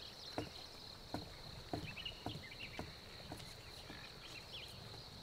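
Faint marsh ambience: a steady high-pitched insect drone with scattered bird chirps. Soft water strokes come about twice a second and stop a little past the middle.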